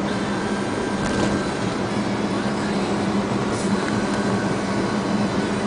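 Steady engine drone and tyre-and-road noise inside a moving vehicle's cab, with a constant low hum.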